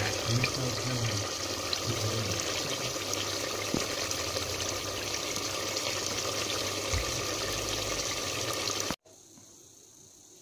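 Pork curry bubbling in an open pressure cooker pot, a steady simmering hiss that stops abruptly about nine seconds in.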